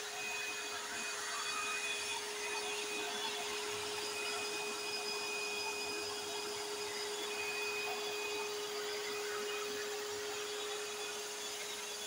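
Kärcher NT 48/1 wet and dry vacuum cleaner running steadily, its motor giving a constant whine over a rush of air, with a fainter high whistle that comes and goes.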